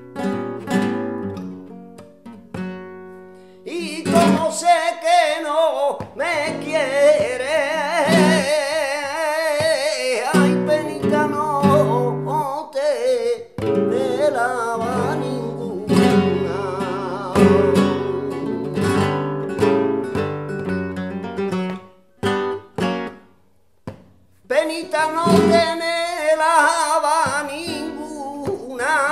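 Male flamenco singer (cante) with a wavering, ornamented voice, accompanying himself on a flamenco guitar. Guitar alone for the first few seconds, then the voice comes in; about three-quarters of the way through there is a short, nearly silent pause before voice and guitar resume.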